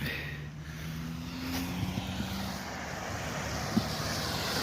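A motor vehicle approaching on the road: a low engine hum under tyre noise that grows steadily louder.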